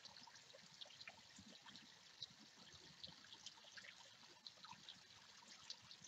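Faint trickling water from a small garden-pond stream running over stones, with many small plinks and drips scattered throughout.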